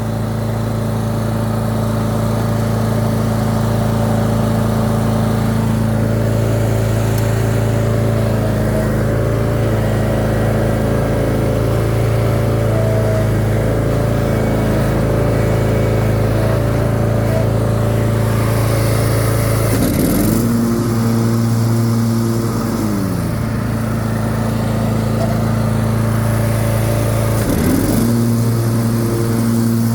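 The 25 hp Briggs & Stratton V-twin engine of a Troy-Bilt Mustang zero-turn riding mower running steadily. Its pitch dips sharply and recovers about twenty seconds in, and again near the end.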